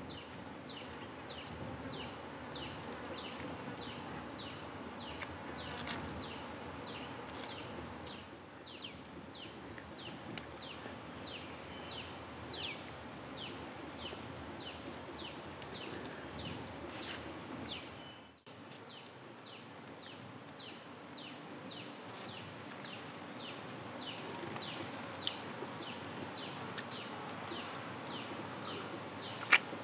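An insect calling in steady rhythm, about two chirps a second, each a quick falling note, over a steady low forest background. The chirping dips out briefly about eighteen seconds in, and a few sharp clicks come right at the end.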